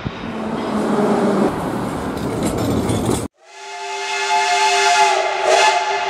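A business jet's engines run with a steady rushing noise as it taxis, cut off suddenly about three seconds in. Then a steam locomotive's whistle sounds one long chord of several tones over the hiss of escaping steam.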